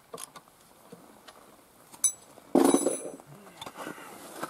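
Small clicks and knocks of metal fittings and wooden poles being handled, with a sharp metallic clink about two seconds in. Half a second later comes a louder rustling scrape.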